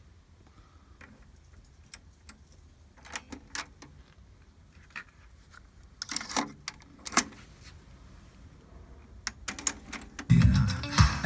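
Plastic clicks and clatter of a Kenwood KX-2520 cassette deck being loaded: a cassette is put into the cassette door, which clicks shut, and a transport button is pressed. About ten seconds in, guitar music from the tape starts playing.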